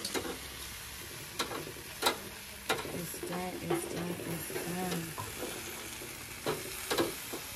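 Basted lamb chops and boerewors sizzling steadily on a braai grid over hot coals, with several sharp clicks spread through.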